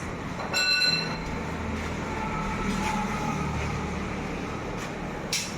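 Low steady rumble of a passing vehicle, with a brief high-pitched squeal about half a second in.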